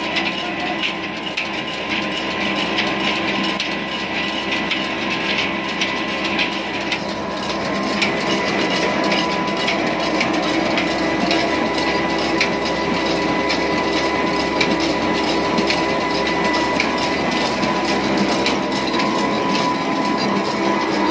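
Old stationary diesel engine running steadily while driving a flour mill through flat belts: a continuous dense mechanical clatter of engine, belts and pulleys, with a steady whine underneath.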